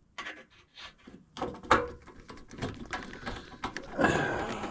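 Scattered clicks and knocks of hands and tools handling parts inside a furnace cabinet, with a louder scraping rustle about four seconds in.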